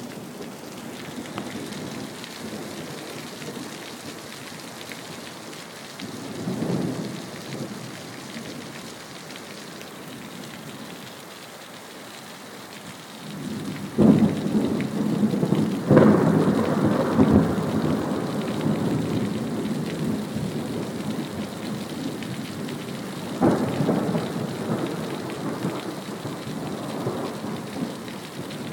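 Thunderstorm: steady rain with rolling thunder. A soft rumble comes about six seconds in, then sudden loud thunder about halfway through rolls on for several seconds, and another peal comes near the end.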